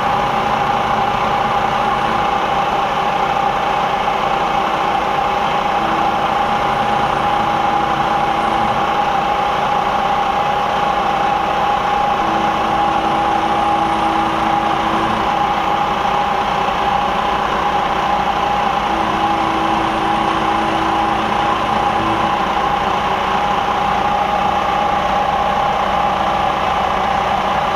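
Variable-speed Series 1 Bridgeport knee milling machine running, its end mill cutting the knobs on a metal lightsaber pommel held in a dividing head. A steady whine sits over the continuous noise of the cut, with fainter tones coming and going.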